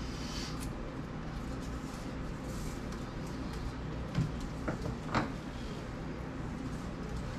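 Flexible weatherstripping being handled and pressed into a door jamb: soft rubbing, with a few short knocks and taps about four to five seconds in, over a steady low hum.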